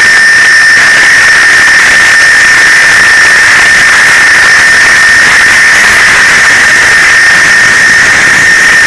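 CNC milling machine with an ultrasonic spindle cutting touch panels under coolant spray. It gives a loud, steady, high-pitched whine over a constant spraying hiss.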